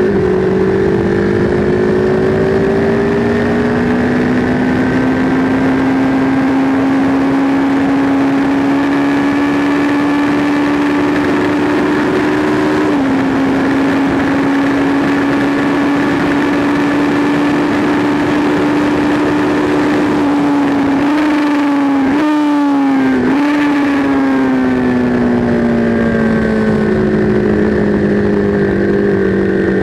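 Sport motorcycle engine running hard at high revs with wind rushing past, heard from on the bike. About thirteen seconds in there is a small drop in pitch at an upshift. Around twenty-two seconds in there is a quick run of downshifts with throttle blips as it brakes for a turn, and the revs fall away near the end.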